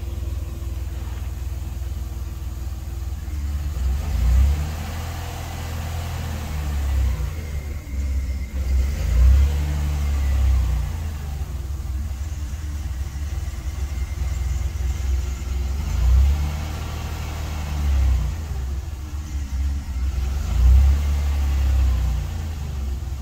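Inside the cabin of a 1990 Dodge Grand Caravan with its 3.3-litre V6 driving along at low speed: a heavy low rumble that swells and fades, with the engine note rising and falling several times as it pulls away.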